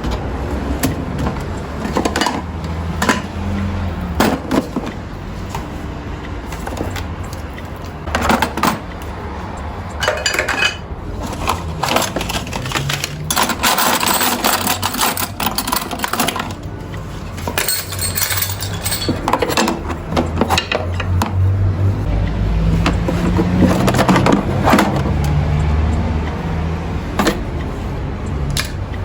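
Household objects being handled: a string of irregular clinks and knocks, like dishes or small hard items set down and moved, over a low steady hum, with stretches of rustling or scrubbing noise about halfway through.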